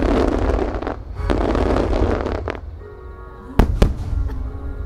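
Fireworks display: a dense crackle and rush of star-mine volleys for the first two and a half seconds, then two sharp bangs of aerial shells bursting close together about three and a half seconds in, with music playing throughout.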